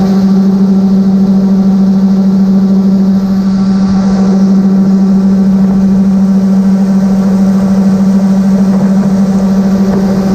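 John Deere 9770 combine running steadily while harvesting corn: a loud, unchanging machine hum with no breaks.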